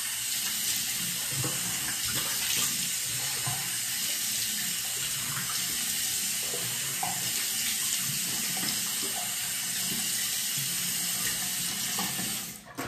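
Bathroom faucet running steadily into a sink while cupped hands splash water onto a face, rinsing off cleanser. The water shuts off near the end.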